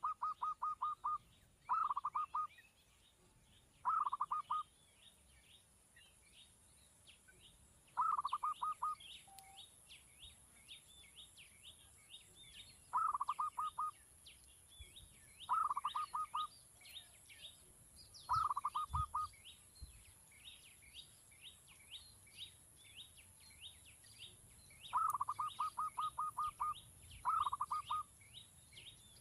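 Birds calling: loud short bursts of rapidly repeated notes every few seconds, over a steady background of faint, higher chirping.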